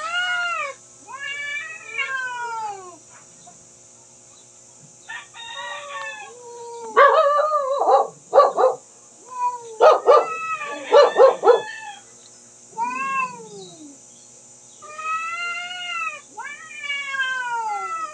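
Two cats yowling at each other in a standoff: long, wavering wails that rise and fall. About seven seconds in, a louder stretch of harsh, choppy screeching lasts several seconds, then the slower wails resume.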